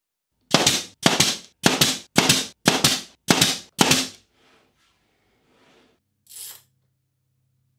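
Brad nailer firing seven times in quick succession, about two shots a second, driving nails through a wooden strip into a board. A single softer, short sound follows near the end.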